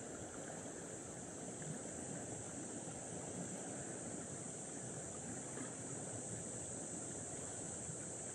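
Sea water washing gently and steadily against a rocky shore, with a constant high hiss over it.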